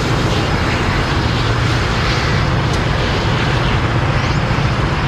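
Diesel locomotive running: a steady low engine hum under loud, even noise.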